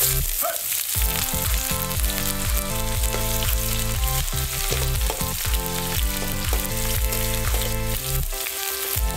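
Sliced onions hitting hot mustard oil in a metal kadhai and frying with a loud steady sizzle that starts suddenly, as they are stirred with a spatula. Background music plays underneath.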